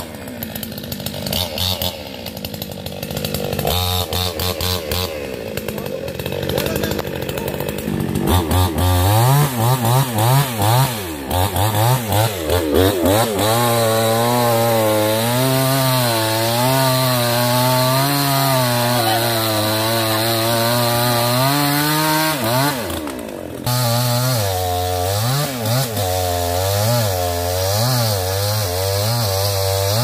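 Two-stroke chainsaw cutting through the limbs of a fallen tree. It is low and uneven at first, revved in short bursts about nine seconds in, then held at steady full throttle for about nine seconds while it bites through the wood. After a brief break it runs on, revving up and down.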